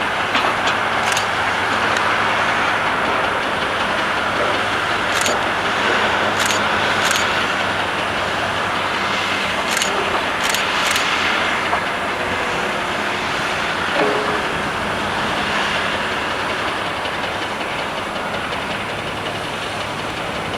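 Komatsu PC1250 hydraulic excavator running steadily at work, its diesel engine humming under a broad hydraulic and mechanical noise, with several short sharp high clicks.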